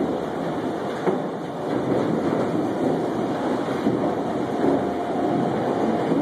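Steady mechanical rumble of a log crane slewing with a grapple load of logs, with a faint steady whine coming in about five seconds in.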